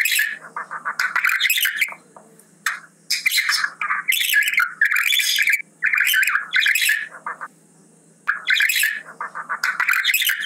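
Budgerigar chatter: rapid warbling and scratchy calls in bouts of one to two seconds, with short pauses between.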